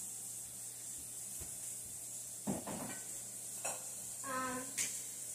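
Food frying in a pan on the stove, a steady sizzling hiss, with a couple of light knocks about two and a half and three and a half seconds in.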